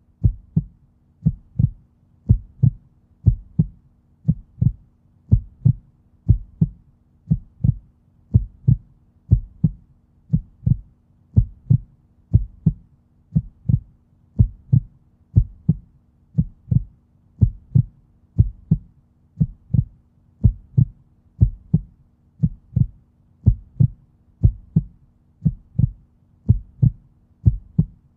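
Heartbeat sound effect: a steady, even train of low double thumps, lub-dub, about one beat a second.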